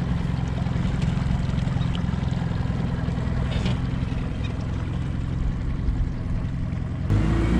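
Small outboard motor pushing a jon boat, running steadily. About seven seconds in it jumps louder and its pitch climbs as it runs faster.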